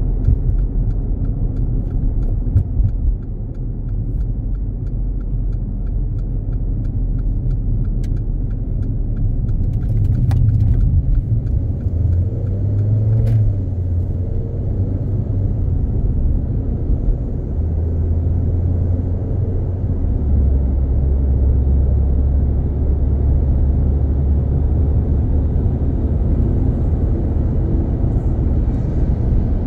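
Road and engine noise of a moving car, a steady low rumble whose pitch shifts slightly now and then, with a few faint clicks.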